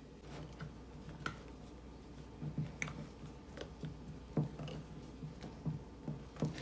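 Silicone spatula stirring thick, sticky loukoumades batter in a ceramic bowl: irregular soft squelches, scrapes and light taps against the bowl, roughly one to two a second.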